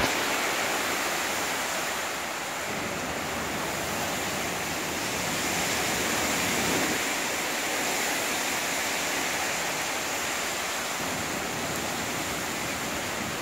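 Hurricane wind and heavy driven rain making a steady rushing noise, swelling and easing slightly with the gusts.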